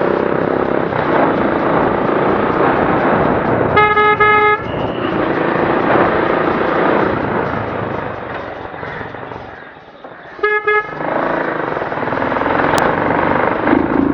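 Riding sound from a Suzuki Gixxer SF's single-cylinder engine at low speed, with wind rushing over the microphone. A horn sounds once for under a second about four seconds in, then gives two short toots about ten and a half seconds in.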